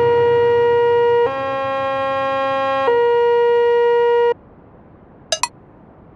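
A steady electronic warning tone that switches between two pitches every second and a half or so, then cuts off suddenly about four seconds in. Two short clicks follow near the end.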